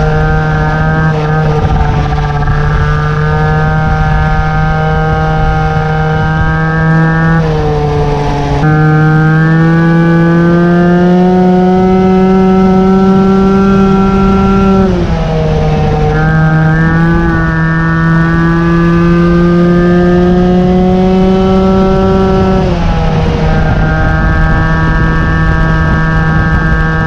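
Peugeot 103 Vogue moped's 50cc two-stroke single-cylinder engine running hard on the road, its high-revving note held nearly steady and creeping slowly upward. It dips briefly three times and picks up again each time.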